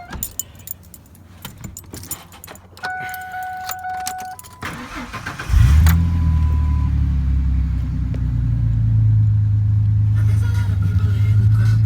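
Keys jangling and a dashboard warning chime sound, then the starter of a Ford F-150's 4.2-litre V6 cranks briefly about five seconds in. The engine catches and idles steadily, its first start after the oil pressure switch was replaced.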